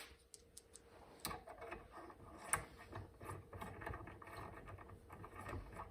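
Faint, irregular clicks and light scraping of small metal parts as a footpeg dust cap is fitted and threaded on by hand.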